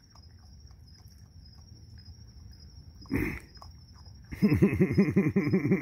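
Raccoon growling in a rapid, wavering pulse of about five a second, starting about four seconds in. A shorter growl comes about a second before it. It is the threat sound of raccoons squabbling over food.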